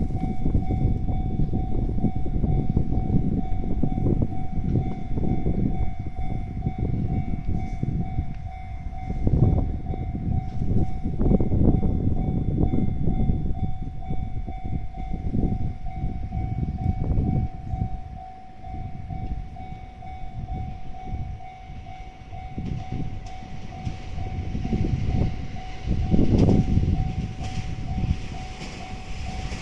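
Japanese railway level crossing warning bell ringing steadily as the crossing is closed for an approaching train, over a loud low rumble that swells and fades.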